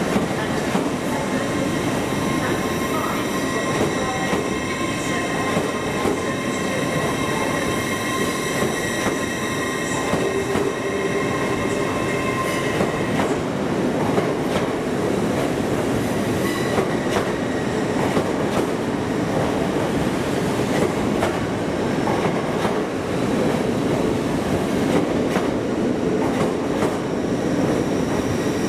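A train moving slowly through a station, its wheels squealing in thin high steady tones over a constant rumble for the first half. Short clicks of the wheels over the rail joints come through in the second half.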